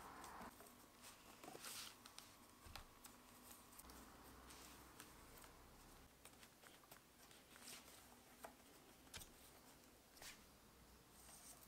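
Faint rustling and light clicking of rolled newspaper tubes being woven by hand between the spokes of a paper basket, in scattered small taps.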